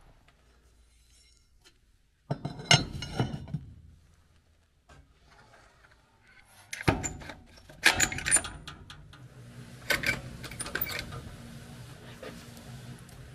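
Two bouts of sharp metal clinking and clattering, about two seconds in and again from about seven seconds, as the steel cleaver blank and tools are handled at an electric heat-treating kiln. A low steady hum runs under the later part.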